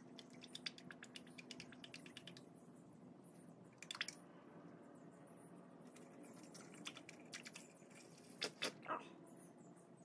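Faint trickle of John Deere Hy-Gard transmission and hydraulic oil pouring from a jug into a funnel on the tractor's fill port, with many small ticks and a few short gurgles.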